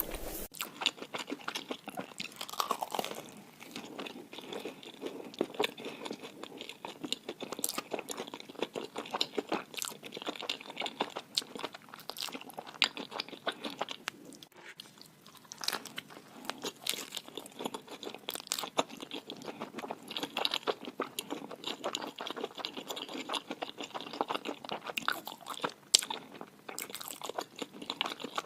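A person biting and chewing crunchy food, a dense run of crisp, irregular crackles with a short lull about halfway through.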